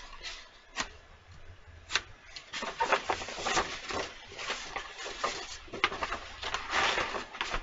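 A large sheet of lining paper rustling and crackling as it is unrolled and smoothed flat on a board by hand, with sharp paper crackles about one and two seconds in.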